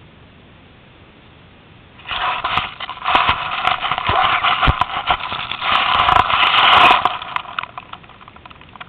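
Wild turkey stepping on and knocking over a small camera lying in the grass: loud scraping and crackling on the microphone with many sharp knocks, starting about two seconds in and lasting about five seconds.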